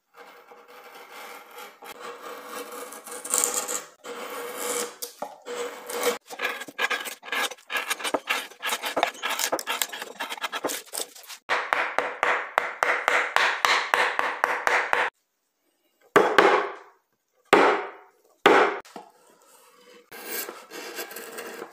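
A carving gouge cutting into a wooden relief panel, driven by quick, repeated taps of a mallet. The taps come faster from about eleven seconds in. After that come three slower, separate cuts, the gouge pushed through the wood by hand.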